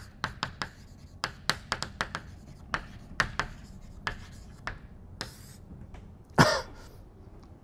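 Chalk on a blackboard writing a heading in a quick run of sharp taps and clicks, then a short scrape as the heading is underlined. Near the end, one brief loud cough.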